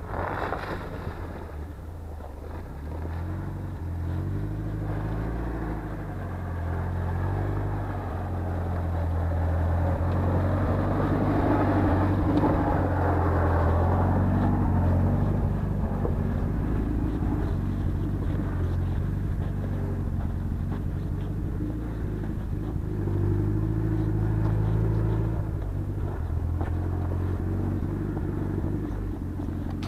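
Off-road vehicle engine driving slowly through snow, its revs rising and falling as it works along the track. It is loudest about a third to halfway through.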